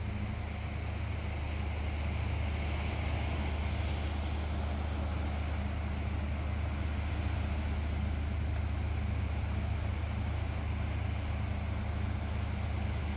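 Steady distant city-and-harbour ambience across the water: a constant low hum with an even wash of noise over it, without any distinct events.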